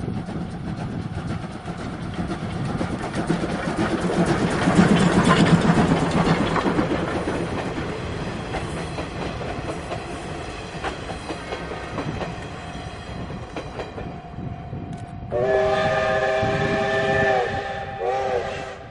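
C12 steam locomotive and its train passing, wheels clattering over the rail joints, loudest about five seconds in and then fading. Near the end the train's whistle sounds twice: one long blast of about two seconds, then a short one.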